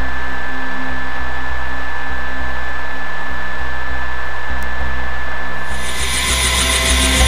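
Bell 205A1++ helicopter's turbine engine and main rotor running steadily, heard from inside the cockpit: a steady whine over a low rotor throb. About six seconds in, the sound shifts to the brighter, hissier turbine whine heard from outside the aircraft.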